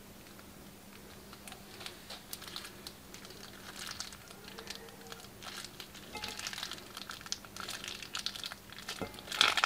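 Clear plastic piping bag crinkling as a hand squeezes it, pressing clear glue out of its cut tip into a glass dish. The crinkling starts after a quiet second or so, grows busier, and ends in a louder burst of crinkling.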